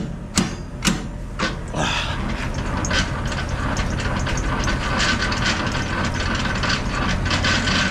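Semi-trailer landing gear being hand-cranked: a few separate knocks, then from about two and a half seconds in a fast, continuous run of gear clicks. Under it runs the low, steady hum of the truck's engine idling.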